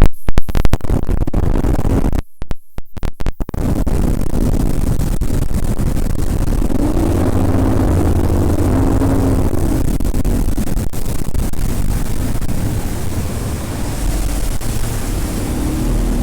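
Bass boat's outboard motor running at speed, with heavy wind and water noise; the engine note rises and falls about halfway through. The first few seconds are choppy, cutting in and out abruptly.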